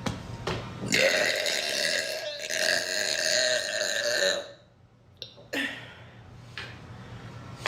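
A young woman burps one long, drawn-out burp, about three seconds long, starting about a second in. A short second burp follows about a second after it ends.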